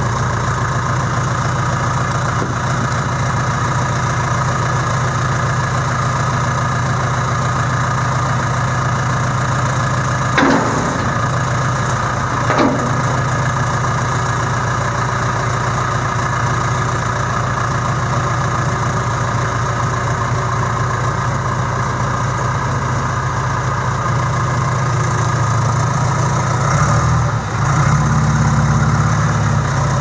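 John Deere 310E backhoe's four-cylinder diesel engine idling steadily, with two short sharp knocks about ten and twelve seconds in. Near the end the engine gets louder and its pitch shifts.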